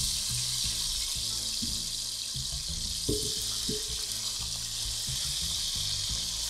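Spice-coated potato chunks sizzling steadily in hot oil in a pot, with a few soft knocks and scrapes of a wooden spatula turning them.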